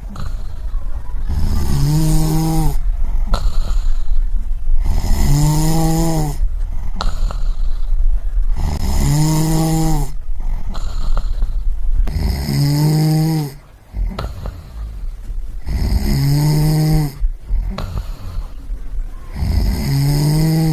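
A person snoring in a steady rhythm, about one snore every three and a half seconds. Each is a pitched, droning snore of about a second, followed by a noisy breath.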